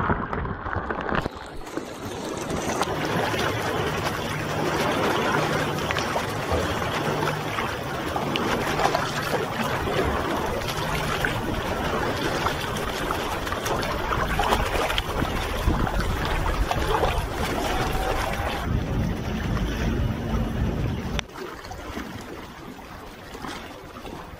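Water sloshing and splashing around a sea kayak as it is paddled, with a low hum in the first half. The sound drops quieter about three-quarters of the way through.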